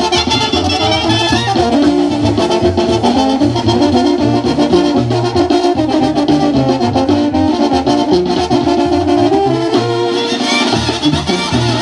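Brass band music: trumpets and trombones playing a melody over a bass line that keeps a steady beat.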